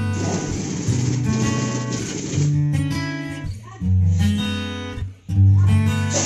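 Background music: strummed acoustic guitar, changing chords every second or so.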